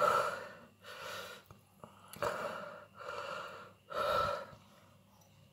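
A man gasping and breathing hard through an open mouth, about five heavy breaths roughly a second apart that trail off near the end: his reaction to the burn of a whole 7 Pot Douglah chilli pepper.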